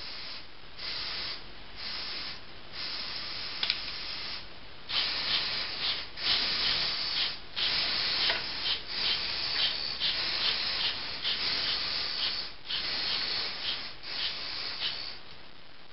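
LEGO Mindstorms EV3 motors running in a string of short bursts with a hissing, rasping whir as they work the puppet's strings, the bursts getting louder about five seconds in.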